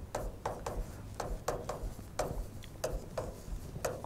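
Chalk writing on a chalkboard: a quick series of short scratching strokes, about three a second, as words are written out.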